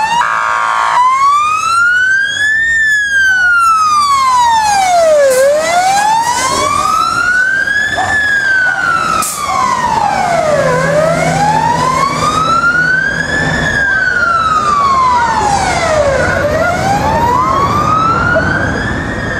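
Fire engine siren on a slow wail, rising and falling about every five and a half seconds. A brief steady blast of the truck's bullhorn comes in the first second.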